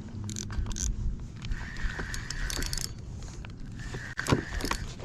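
Fishing reel being cranked in spells of about a second, with mechanical clicking, as a hooked fish is reeled in.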